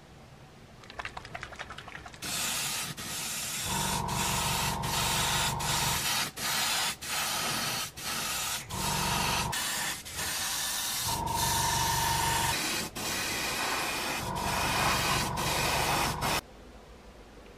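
Airbrush spraying acrylic gloss varnish: a steady hiss of air and atomised varnish in long passes broken by short gaps as the trigger is released. A low motor hum comes and goes underneath it several times. The spraying stops abruptly just before the end, after a few quick clicks at the start.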